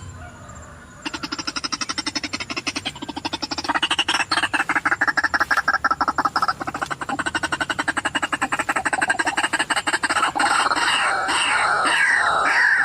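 White-breasted waterhen (ruak-ruak) calls, the sound used to lure the birds. About a second in a fast, even run of croaking pulses begins. Near the end it changes to loud repeated falling calls, about two a second.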